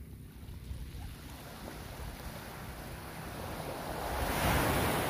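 Small sea waves washing onto the beach, growing louder as one wave breaks at the shoreline near the end, with low wind rumble on the microphone throughout.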